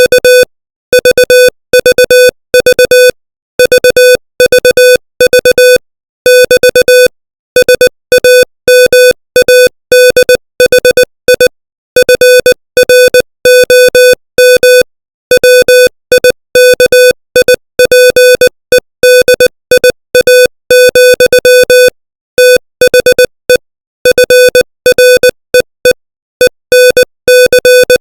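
Morse code sent at 20 words per minute: a single mid-pitched electronic tone keyed on and off in short and long beeps (dits and dahs), with silent gaps between letters and longer ones between words.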